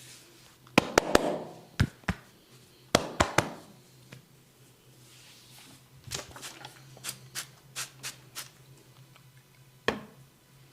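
A barber's hands striking a client's head and body during a percussive massage. There is a quick group of loud, sharp slaps about a second in and another about three seconds in, then a run of lighter taps, and a single sharp slap near the end.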